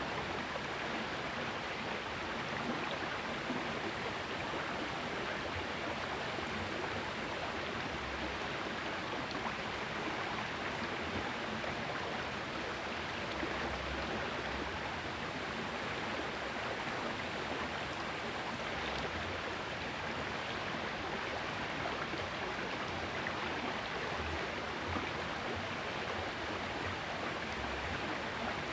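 A small river's current running steadily over the shallows, a constant rush of water.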